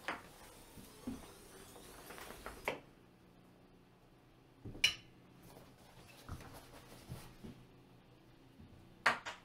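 A hard-shell clamshell rooftop tent being opened by hand: the nylon tent fabric rustles as the lid is lifted. A few sharp clicks and knocks from the shell and its hardware come through it, the loudest about five seconds in and a double knock near the end.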